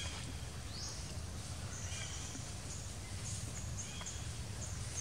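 A run of short, high-pitched chirping calls repeating over a steady low outdoor rumble, with one quick upward-sliding note under a second in.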